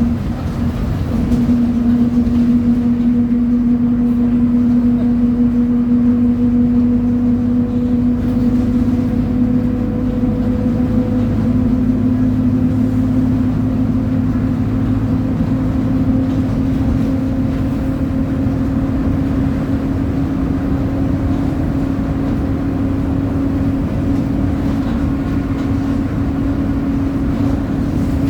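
Mercedes-Benz OF 1722M city bus under way, its diesel engine at high revs with the differential growling: a strong steady whine whose pitch climbs slowly as the bus gathers speed.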